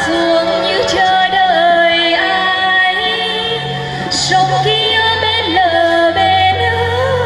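A woman singing a Nghệ Tĩnh ví folk song through a microphone, in long held phrases that bend slowly in pitch, over an instrumental backing with low held notes beneath.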